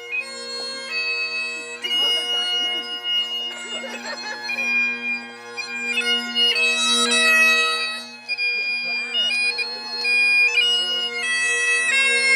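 Bagpipes playing a slow tune of held notes over steady, unbroken drones.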